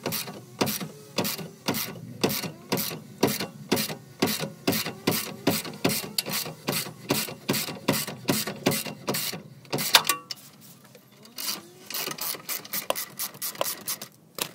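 Ratchet wrench clicking as it turns the spindle of a threaded puller, pressing a worn rear axle joint bushing out of a Mercedes-Benz rear wheel carrier: steady clicks about three a second, one louder crack about ten seconds in, then a short pause and faster clicking.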